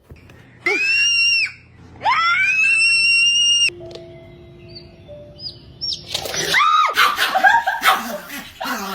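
An animal gives two long, high screeching calls that rise in pitch and then hold, followed after a short pause by a quick run of shorter, jumpier calls.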